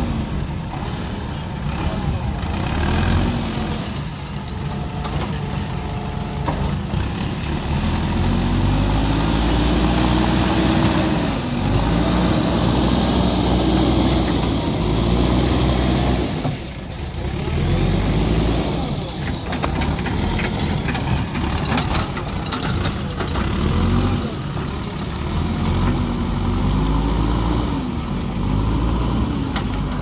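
JCB backhoe loader's diesel engine running under load, revving up and down repeatedly as the machine works, with a brief drop about halfway through.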